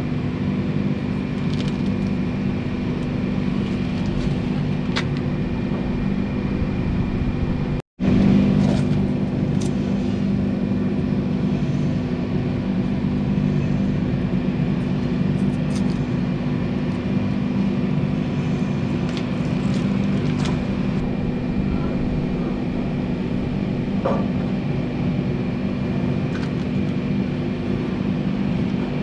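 A steady mechanical drone, like a motor running at constant speed, with a few faint clicks; it cuts out for an instant about eight seconds in.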